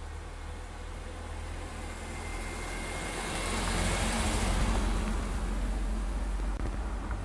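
A road vehicle passing, its engine and tyre noise swelling to a peak about four to five seconds in and then easing off, over a steady low rumble.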